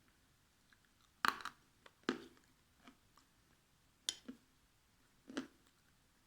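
Pieces of dried Ural clay bitten and chewed: four sharp crunches, each followed by a little chewing.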